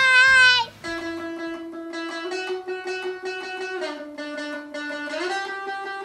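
Background outro music: a plucked string melody of long held notes that move to a new pitch every second or two. A long shouted "bye" ends within the first second.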